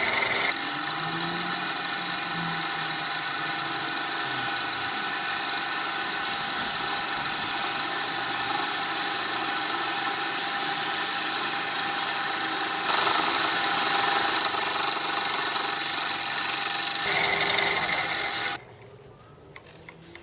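Metal lathe running and cutting the face of a casting, a steady machine whine with several fixed high tones and hiss. It gets a little louder partway through and cuts off suddenly near the end, leaving only a faint hum.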